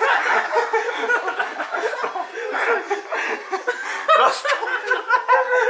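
Several people laughing continuously, their laughs overlapping.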